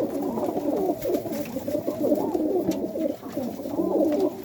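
Several domestic pigeons cooing together, a steady overlapping chorus of low, wavering coos from cocks being paired with hens.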